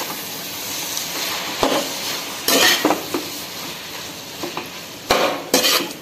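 Noodles and vegetables sizzling in a kadai while being tossed and stirred with a metal spatula, which scrapes and clanks against the pan several times, loudest about two and a half seconds in and near the end.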